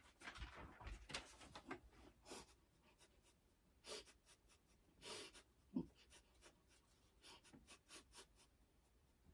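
Near silence with faint rustling and light handling clicks as a person moves about and picks things up. There is a short scratchy patch in the first second, brief rustles about four and five seconds in, and a small low thud just after.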